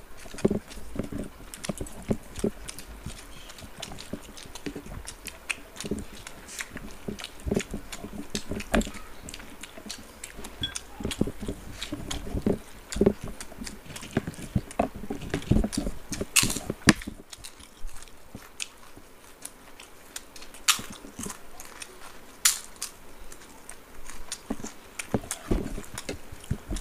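Two people eating rice and curry with their hands, close to the mic: chewing and wet mouth smacks, with fingers mixing rice on the plates, heard as irregular sharp clicks and smacks.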